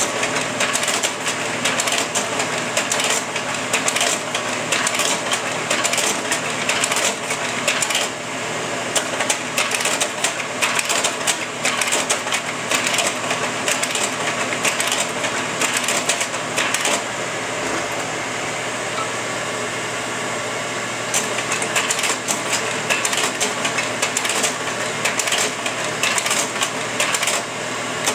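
Kodak Carousel 4400 slide projector running, its fan giving a steady whir. Over it the slide-change mechanism clacks repeatedly as the tray is stepped from slide to slide. The clatter pauses for a few seconds in the middle of the run, leaving only the fan.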